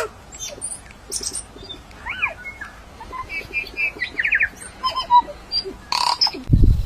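Birds calling: a scattered series of short chirps and whistled notes, including a pair of rising-and-falling glides and a quick run of repeated notes, with low thuds starting near the end.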